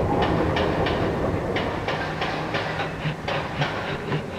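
Model train rolling along the track, its wheels clicking over the rail joints about three times a second over a low running hum.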